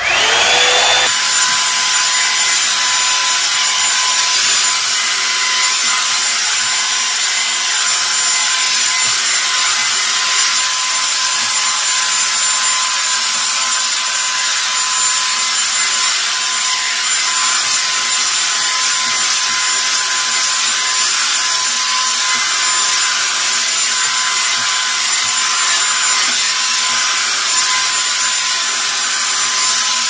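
Revlon One-Step hair dryer brush switched on: its motor spins up with a brief rising whine, then runs steadily with a loud rush of blown air and a thin steady whine.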